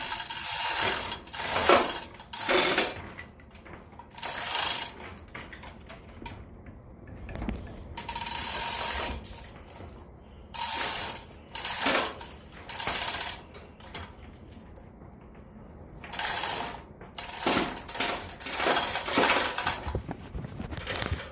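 Hand ratchet being worked in repeated strokes, with irregular pauses, to pull a new elevator governor rope through the tripped governor's jaws during a pull-through test.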